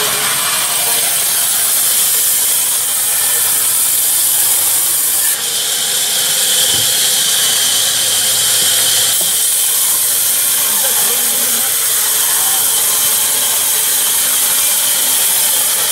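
Sawmill band saw running and cutting through timber: a loud, steady hissing noise that grows brighter in the treble between about five and nine seconds in.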